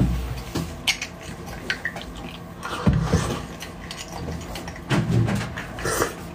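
Small metal spoon scraping and clicking against the inside of a braised beef marrow bone as the marrow is dug out, in scattered sharp ticks, with a couple of louder, duller mouth and eating sounds around the middle and near the end.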